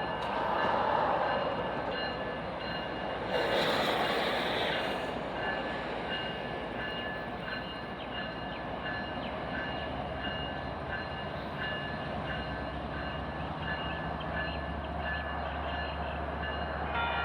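Union Pacific auto-rack freight train on the move, a steady rolling rail noise with a few faint high ringing tones over it. A low diesel locomotive rumble grows in over the last few seconds as the lead unit, a GE AC45CCTE, draws near.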